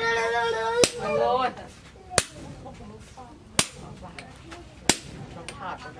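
Sledgehammer blows on a handled hot chisel held against a glowing steel bar on the anvil: four sharp metallic strikes about 1.3 seconds apart. A loud drawn-out animal call, held and then wavering, fills the first second and a half.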